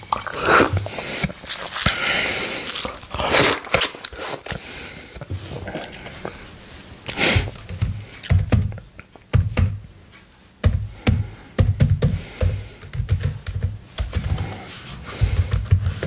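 Typing on a computer keyboard: irregular runs of key clicks, with a few louder noisy sounds in between.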